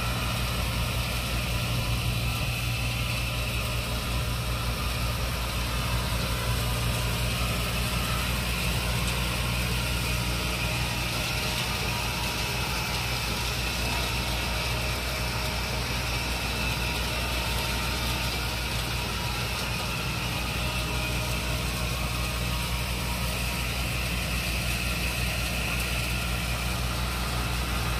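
Tractor-driven Nataraj thresher threshing mung beans: the tractor engine and the machine's spinning drum and fan run in a steady, unbroken drone.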